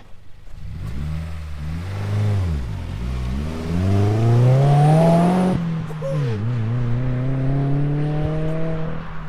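A 2015 Subaru WRX's turbocharged 2.0-litre flat-four revving through an Invidia N1 cat-back exhaust as the car accelerates, heard from outside the car. The engine note climbs, drops sharply at a gear change about five and a half seconds in, then climbs again.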